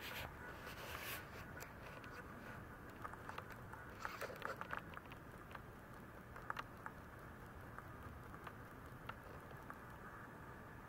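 Faint scattered rustles and soft clicks over a low steady hiss, busier near the start and again about four seconds in.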